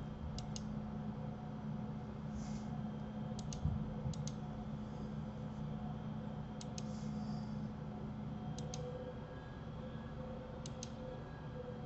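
Computer mouse and keyboard clicks, mostly in close pairs every one to two seconds, six pairs in all, over a steady low hum.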